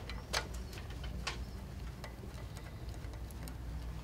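A screwdriver turning a screw out of the side plate of a King Quilter longarm quilting machine: a few faint, scattered clicks and ticks of metal on metal, over a low steady hum.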